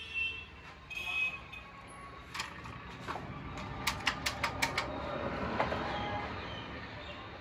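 A quick run of sharp clicks and knocks, about five close together around four seconds in, with a few single clicks before them, over a low steady rumble.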